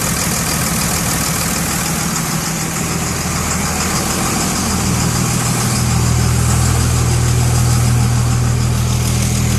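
2002 Cummins diesel engine idling with a knock in it; its low hum grows louder about five seconds in.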